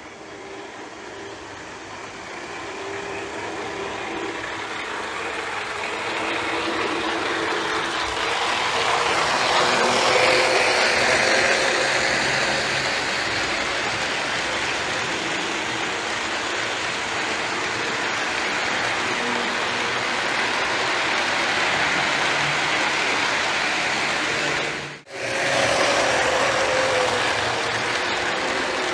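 Lionel O-gauge F3 diesel train with passenger cars rolling along three-rail track: a steady rumble and clatter of wheels that grows louder over the first ten seconds or so. A whine rises over it about ten seconds in and again after a brief dropout near the end.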